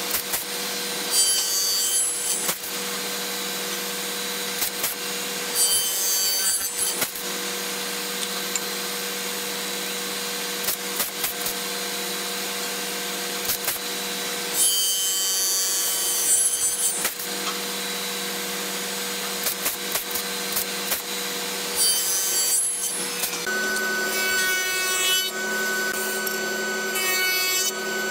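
Spindle moulder (wood shaper) running with a steady hum, its cutter biting into hardwood boards in several loud noisy bursts as pieces are fed past. Near the end the hum changes to that of a different machine.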